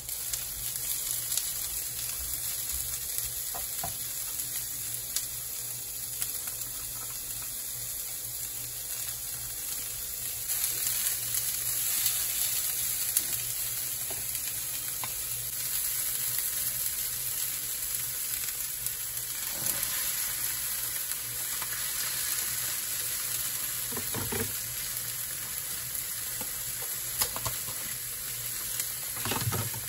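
Bean sprouts and cabbage sizzling in oil in a nonstick wok as they are stir-fried, with a plastic spatula stirring and scraping through them. The sizzle grows louder about ten seconds in, and a few louder clatters come in the second half.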